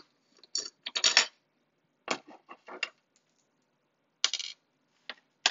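Irregular small clicks and clinks from an Omnibot 5402's plastic gripper-arm parts being worked apart with a small screwdriver, which is then set down on a wooden workbench among loose screws.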